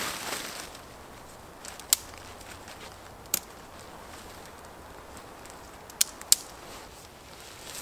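Tent fabric rustling as it is spread out, then four sharp clicks, two of them close together near the end: the tent's plastic clips snapping onto the tent pole as the Big Agnes Fly Creek UL 2 inner tent is hung.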